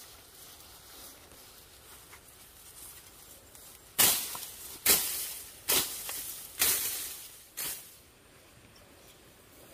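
Tall grass and leafy stems swishing as someone walks through them: five loud swishes about a second apart, each fading quickly.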